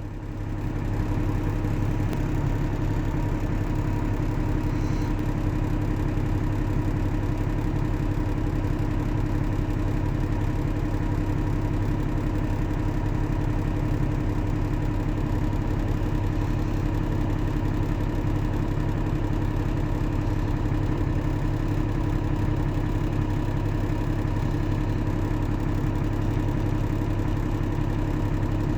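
New Holland B90B backhoe loader's diesel engine running at a steady speed, coming up in level over the first second and then holding even.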